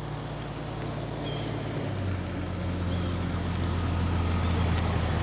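Jeep Grand Cherokee ZJ driving slowly up the driveway. Its engine hum grows steadily louder as it approaches and pulls up close.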